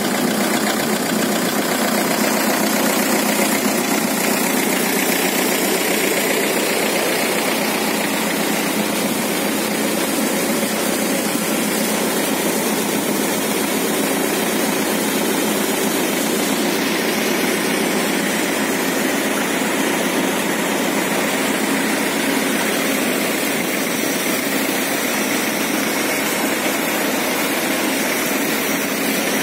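Mahindra 575 DI tractor's four-cylinder diesel engine running steadily, driving a water pump through its PTO shaft.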